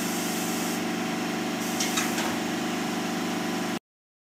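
Pneumatic swing arm with its tip dresser unit and the shop machinery around it: a steady mechanical hum with a compressed-air hiss that swells and drops, and a couple of sharp clicks about two seconds in. The sound cuts off abruptly near the end.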